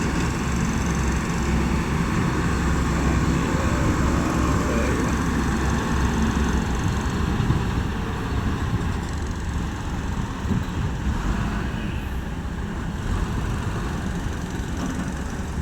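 Excavator's diesel engine running steadily at working speed, easing off slightly about halfway through.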